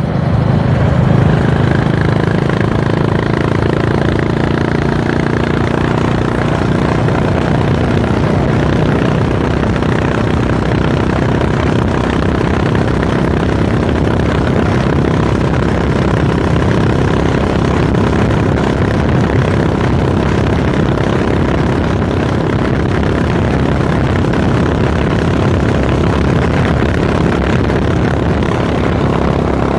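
Honda H'ness CB350's single-cylinder engine and exhaust running steadily at highway cruising speed, heard from the saddle of the moving bike.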